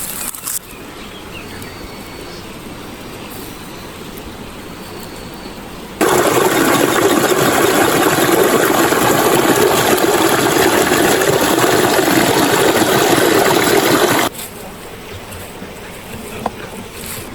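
Rushing river water, a steady hiss and rush. It is much louder for about eight seconds in the middle, starting and stopping abruptly, with quieter flowing water before and after.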